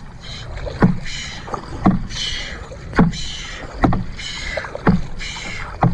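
Double-bladed paddle strokes in a canoe, about one a second, alternating sides: each stroke gives a sharp knock followed by a splashing swish of water off the blade.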